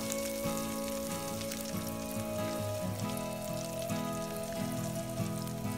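Crumbed bread rolls deep-frying in a wok of hot oil: a steady sizzle full of small crackles. Background music with held notes plays under it.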